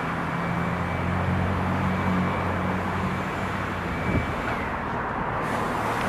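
A vehicle engine running with a steady low hum that fades out about four seconds in, over outdoor background noise.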